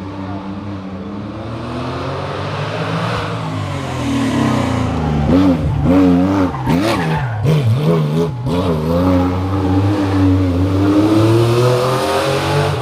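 Historic rally car's engine running hard on a special stage. In the middle its pitch swings rapidly up and down with throttle blips and gear changes, then climbs steadily as it accelerates near the end.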